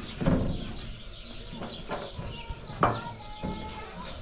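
Rural outdoor ambience: birds chirping and a farm animal calling, with faint voices. Two louder sounds stand out, one just after the start and one about three seconds in.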